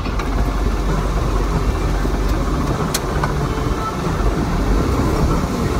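Tractor engine running steadily while driving, heard from inside the cab, with a single faint click about three seconds in.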